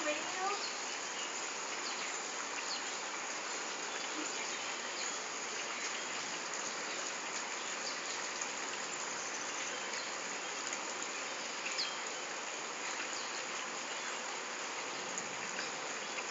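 Steady outdoor insect chorus, an even high chirring hiss, with a few faint short chirps above it.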